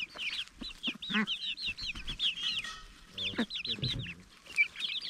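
A flock of young hens cheeping in a dense, overlapping chorus of short high peeps while feeding on cooked rice from an enamel pot. Beaks tap against the pot, and a couple of lower, coarser calls come about a second in and again a little past three seconds.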